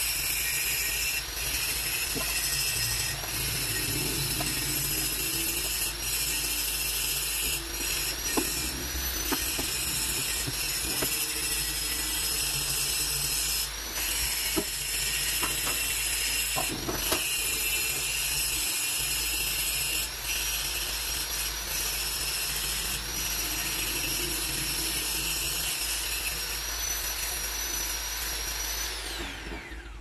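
A small electric motor runs steadily with a high whine, with scattered clicks. Near the end its pitch falls as it winds down, and then it stops.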